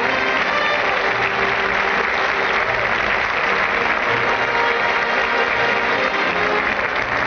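Audience applauding a presenter's walk-on at an awards ceremony, with play-on music under the applause; an old, band-limited broadcast recording.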